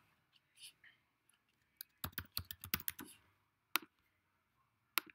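Typing on a computer keyboard: a quick run of about ten keystrokes about two seconds in as a password is entered, followed by two single clicks about a second apart.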